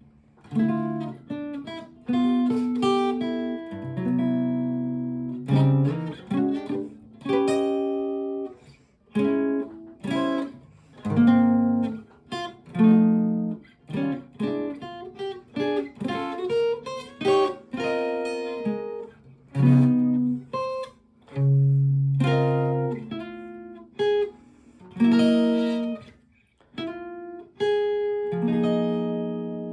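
Solo acoustic guitar playing a slow chord-melody arrangement of a jazz ballad. Chords and melody notes are plucked and left to ring, with short breaks between phrases.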